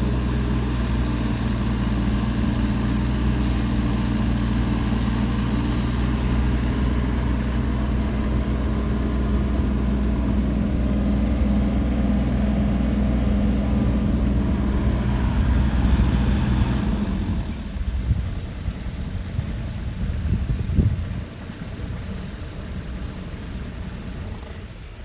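Kubota RX-406E mini excavator's diesel engine idling steadily, then stopping about seventeen seconds in. A single knock follows a few seconds later.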